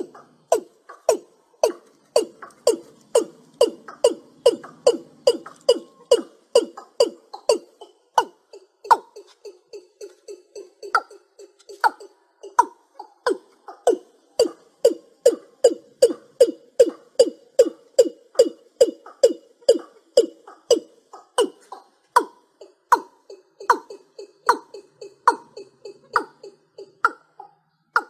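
Watercock calling in a long, rapid series of low notes, about three a second. The notes fade and thin out for a few seconds midway, then slow to fewer than two a second and ring higher in the last several seconds.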